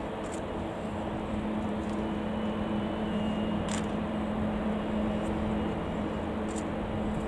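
Boeing 787-9 jet engines running at taxi power: a steady hum with a few faint ticks over it.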